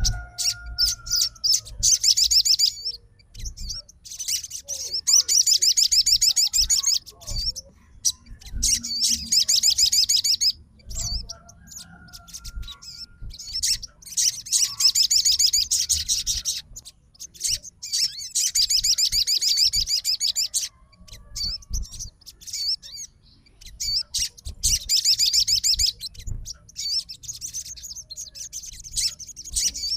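Sogon bird singing in bouts of rapid, high-pitched chattering. Each bout lasts one to two seconds and comes every few seconds, with short pauses between them.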